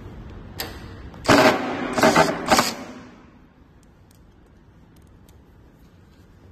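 Rapid mechanical clatter inside a metal charging cabinet: a click, then three short rattling bursts in quick succession.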